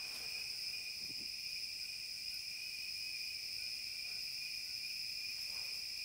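Steady chorus of rainforest insects: an unbroken high trill sounding in two pitches at once.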